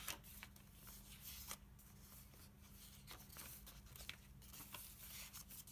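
Faint rustling and light clicks of paper pages and tabs being handled and turned in a handmade junk journal, over a faint steady hum.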